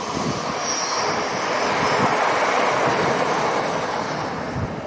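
A CrossCountry Class 170 Turbostar diesel multiple unit passing, its engines and wheels on the rails swelling to a peak about two seconds in and then fading. A brief high whine sounds near the start.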